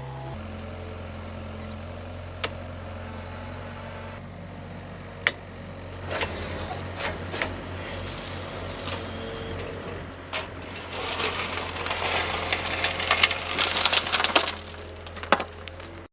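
Heavy machine's engine running steadily, with scattered knocks and a louder stretch of rattling and scraping in the second half.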